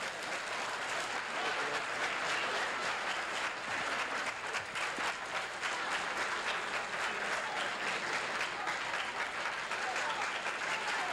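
Crowd applauding, a dense, steady clatter of many hands clapping.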